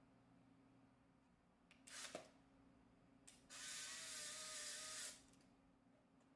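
Polaroid SX-70 instant camera with an openSX70 board firing: a short shutter-and-mirror clatter about two seconds in, then a click and the camera's motor whirring for about a second and a half as it runs through its cycle.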